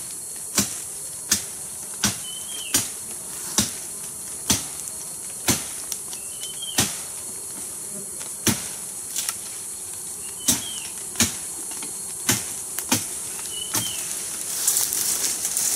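Steady high drone of forest insects, cut by sharp knocks about once a second, with a faint short bird chirp repeating every few seconds.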